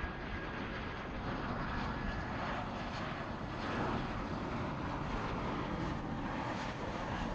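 Airbus A319-115 jetliner on final approach with gear down, its CFM56 turbofan engines giving a steady jet rumble.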